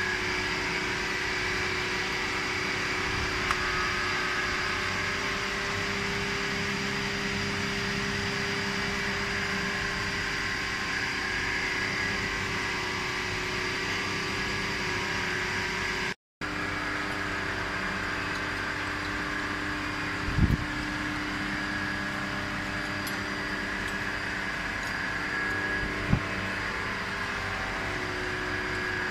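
Steady hum of a powered-up plastic thermoforming machine, several fixed tones over a low drone, with a few short knocks as the mould is worked on.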